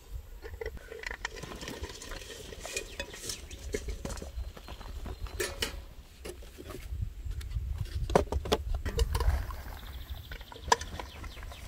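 Cherries being handled: poured from a metal bucket into a wooden crate and sorted by hand, giving scattered clicks, taps and rustles, with a low rumble underneath that swells about two thirds of the way in.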